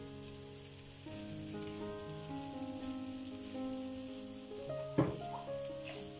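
Rice and chopped vegetables sizzling in a non-stick frying pan as they are stirred with a slotted spatula, with a sharp knock of the spatula against the pan about five seconds in. Background music with sustained notes plays throughout.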